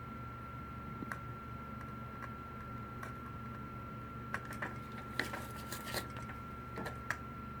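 Scattered light clicks and taps of small tools on a circuit board during desoldering, bunched together about halfway through. Under them run a steady low hum and a thin steady high whine.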